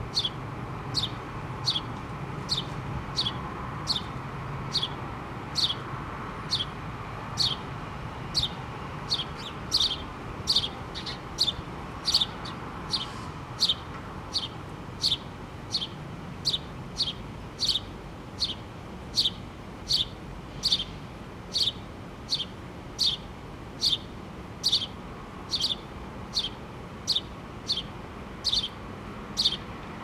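House sparrow chirping steadily: a long, evenly paced run of short, falling chirps, about three every two seconds.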